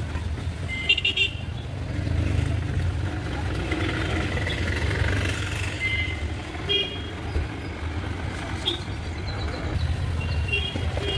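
Steady road-traffic rumble with several short vehicle horn toots, about a second in, around the middle and near the end.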